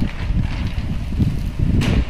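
Low, uneven rumbling on the phone's microphone, with one brief sharp noise near the end.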